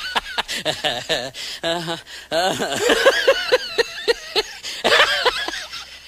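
Laughter: a voice laughing hard in quick repeated 'ha-ha' pulses, about four or five a second, in several runs with short breaks.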